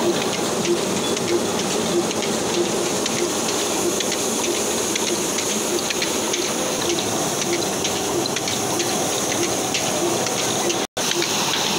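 Cotton painja machine running: a steady rushing whirr as its toothed drum beats and throws out fluffed cotton, with a regular low beat about one and a half times a second from the Ruston Hornsby diesel engine that drives it by belt. The sound cuts out for a moment near the end.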